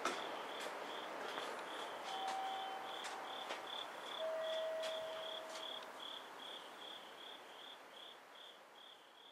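A cricket chirping in an even rhythm, about three chirps a second, over a rushing background noise that slowly fades away.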